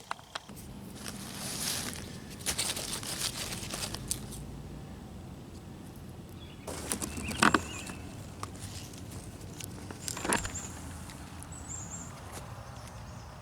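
Footsteps and rustling through dry leaf litter and brush, with irregular crackles and sharp snaps of twigs.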